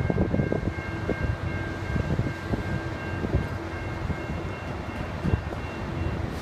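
Distant diesel locomotive horn held in one long steady chord as the train approaches, over a low gusty rumble of wind on the microphone.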